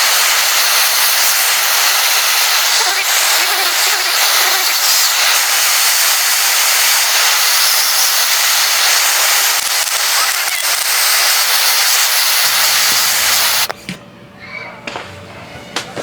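A loud, steady jet of pressurised gas hissing, cutting off suddenly about fourteen seconds in, followed by a few light clicks.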